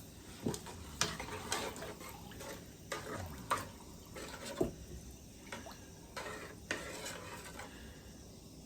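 Kitchen clatter of pots and utensils: a string of sharp knocks and scrapes, about eight of them over some six seconds.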